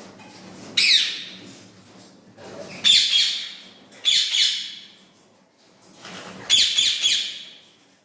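Indian ringneck parakeet squawking: four loud, harsh calls spread over several seconds.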